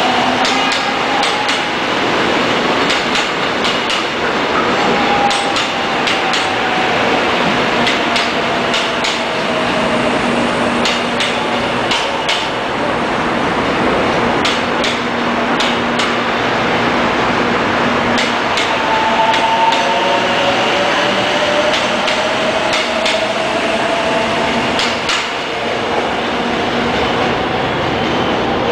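Seoul Metropolitan Subway electric train running along the platform: a steady loud rolling noise with many sharp clicks from the wheels and several drawn-out whines that slide in pitch.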